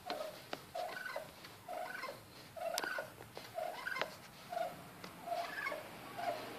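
Wild turkey tom giving a series of short soft calls, evenly spaced about one a second, while strutting at its own reflection as if at a rival. A few sharp clicks fall among the calls.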